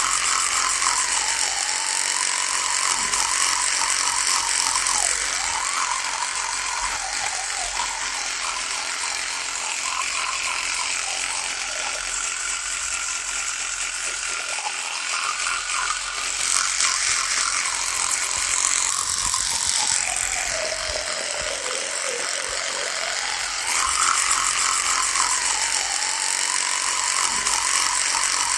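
Electric toothbrush running continuously with a buzzing drone whose pitch wavers up and down every few seconds.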